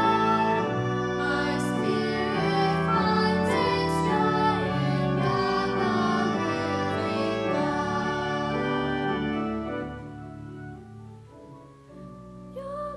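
Girls' voices singing a hymn together with instrumental accompaniment. The music dies away about ten seconds in, and a single girl's voice begins a new phrase near the end.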